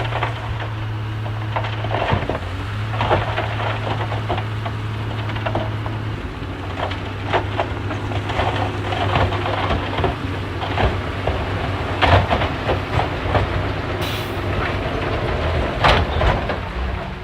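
Crawler bulldozer's diesel engine running steadily under load, with irregular clanks and knocks from its steel tracks and the material being pushed. The engine note dips slightly about six seconds in.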